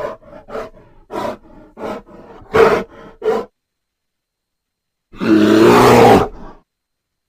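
Animal grunts, short and rhythmic at about two a second, then after a dead-silent gap one loud growling roar lasting about a second and a half.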